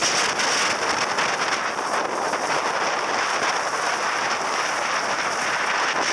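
Steady rush of wind buffeting the microphone, mixed with the roar and spray of a large waterfall close by.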